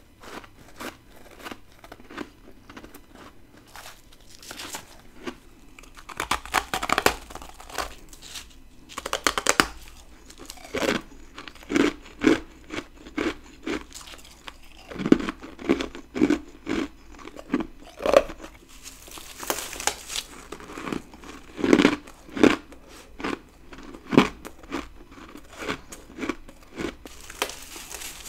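Close-up bites and chewing of freezer frost: soft crackling and crumbling at first, then from about six seconds in a run of loud, crisp crunches as chunks of frost are bitten off and chewed.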